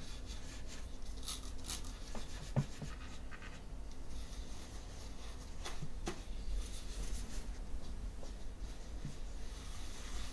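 Shop towel rubbing and wiping across the gasket surface of an intake manifold, with a few faint taps and clicks, over a low steady hum.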